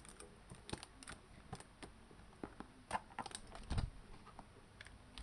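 Fingers handling a cardboard box as its top flap is prised open: a string of small irregular clicks and taps, with a duller knock about four seconds in.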